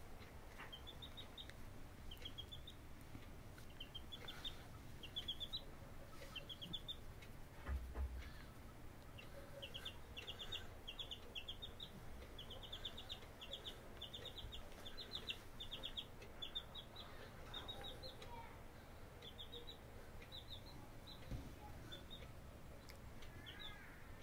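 A chick peeping in quick runs of three to five short, high notes, a new run about every second. A brief low bump about eight seconds in.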